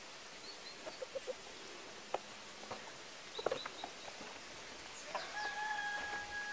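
Chickens clucking in short calls, then a long, steady held call starting about five seconds in and lasting about two seconds; small birds chirp faintly.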